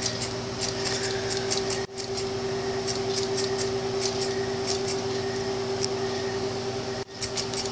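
Homemade solenoid engine running: its iron-nail plunger and bent-wire crankshaft contact make irregular sharp clicks several times a second over a steady hum.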